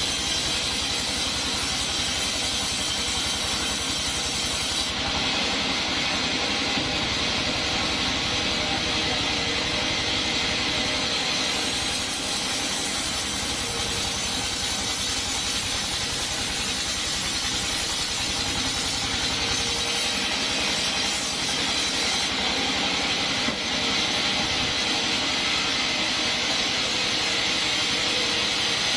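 Sawmill band saw running and cutting coconut wood: a steady machine drone with a hissing cutting sound that changes character in long stretches as the cut goes on.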